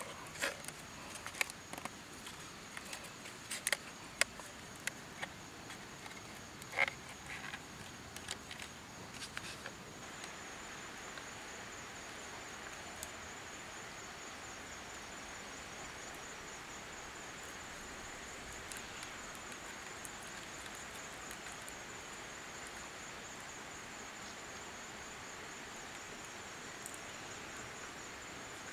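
Sharp clicks and snaps of green bamboo and thin bamboo strips being worked by hand through about the first ten seconds. Under them, and alone after them, a steady high insect trill.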